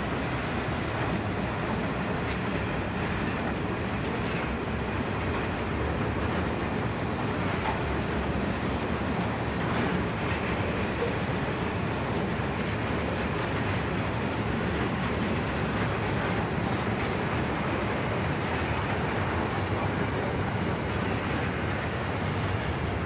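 Broad-gauge container freight wagons rolling past: a steady rumble of steel wheels on the rails.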